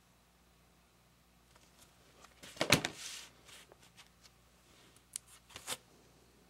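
Cardboard LP record jackets being handled: a loud scraping rustle about two and a half seconds in as a jacket is slid and set down against the stack, then a few sharp taps and scrapes near the end as it is picked up again.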